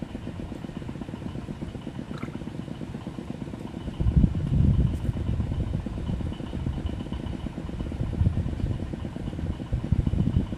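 Wind buffeting the microphone: a low, gusty rumble that swells about four seconds in and again near the end. A faint steady high tone runs under it.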